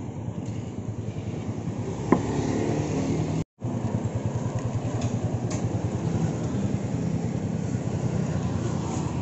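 Yamaha Sniper 150's single-cylinder four-stroke engine idling with a steady, rapid low pulse. There is a brief clink about two seconds in, and the sound cuts out for a moment midway.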